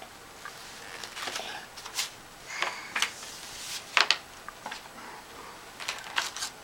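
Catalog pages being handled and turned by small hands: a scatter of short paper rustles and crinkles, the loudest about four seconds in.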